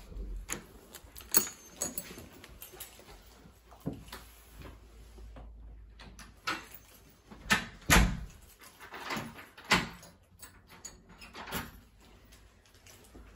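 Scattered knocks, clicks and rustles of doors being handled and a phone carried through a hallway, brushing against clothing; the loudest knock comes about eight seconds in.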